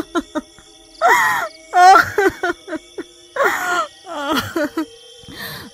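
A woman crying: several short, wavering sobs and moans, over a steady background music drone.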